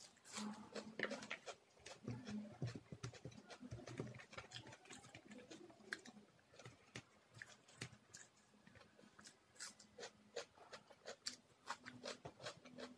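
Close-miked chewing: crunching a bite of raw onion and chewing rice, heard as a dense run of irregular short crisp clicks and wet mouth sounds.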